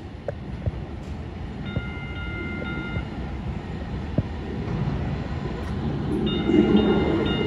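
Seattle Link light rail train approaching through the tunnel into an underground station, its low rumble growing steadily louder. It sounds a horn, one held note about two seconds in, then a few short notes near the end, with a few sharp clicks from the rails in between.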